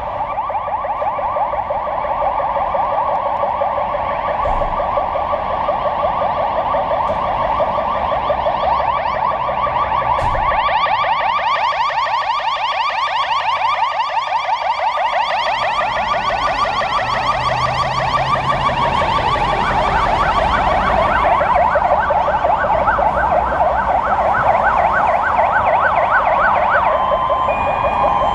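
Several electronic emergency-vehicle sirens sounding over one another, fast yelping and warbling tones that fade in at the start and grow fuller. Toward the end one settles into a rapid yelp of about four cycles a second.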